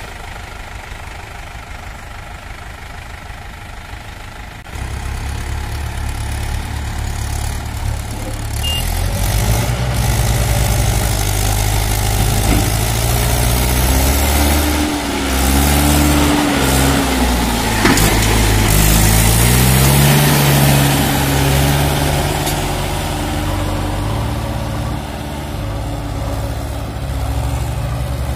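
Mahindra 575 tractor's four-cylinder diesel engine running steadily, then about five seconds in working hard under heavy load, its pitch rising and falling as it strains to drag a loaded trolley out of soft sand, with a JCB backhoe loader's diesel engine running alongside. A single sharp click comes just past the middle.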